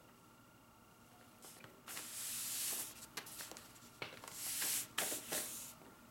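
A large sheet of Xuan rice paper rustling and crackling as hands slide and smooth it flat. The rustle comes in two stretches, about two and about four seconds in, with a few small crinkles between.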